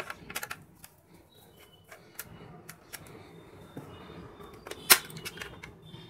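Sharp plastic clicks and snaps as the back cover of a Hikvision AX Hub alarm control panel is pried open with a tool, with one loud snap about five seconds in as a clip lets go.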